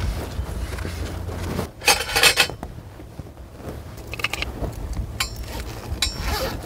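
Things being handled: a loud cluster of clattering and scraping strokes about two seconds in, then a few shorter knocks near the end.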